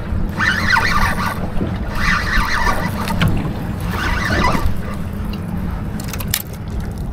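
Boat engine running steadily offshore, with several short, harsh higher-pitched bursts in the first few seconds and a couple of sharp clicks near the end.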